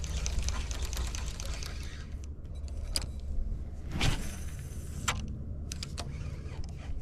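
Spinning reel being cranked and the fishing rod handled: light clicks and rattles, with a few sharp knocks, the strongest about four seconds in, over a steady low rumble.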